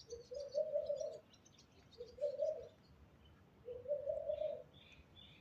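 A dove cooing three times, each low coo lasting about a second, while small songbirds chirp faintly and high in the background.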